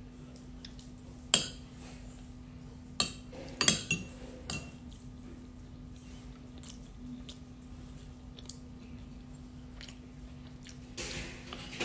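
Spoon and fork clinking and scraping against a plate while eating, with a few sharp clinks in the first few seconds and fainter ones after. A steady low hum runs underneath.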